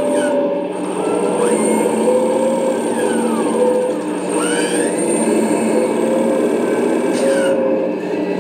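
1/8-scale Cat 390F RC excavator working its hydraulics: a steady simulated diesel engine sound from the model's onboard sound system mixes with its hydraulic drive as the boom and bucket lift.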